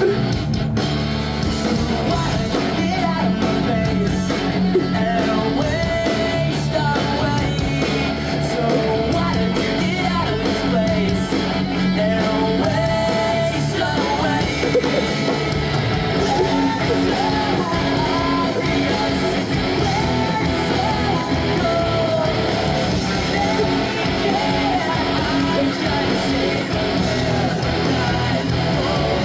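Rock music with a singing, shouting vocal over guitar and drums, at a steady loud level.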